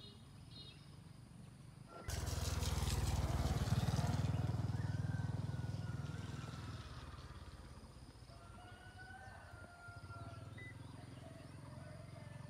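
A motor engine comes in suddenly about two seconds in with a low, rapidly pulsing rumble, then fades away gradually over several seconds, like a vehicle moving off. Birds chirp faintly through it.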